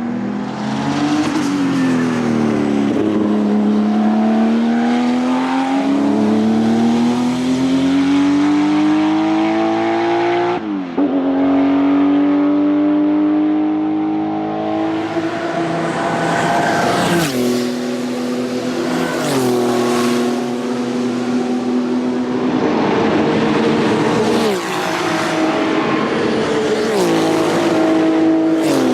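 Porsche 935 K3 Kremer race car's 3.2-litre twin-turbo flat-six running hard on track. The engine climbs steadily in pitch for about ten seconds, then drops sharply at a gear change. It then holds fairly steady, with several more sudden drops in pitch, each marked by a short crack.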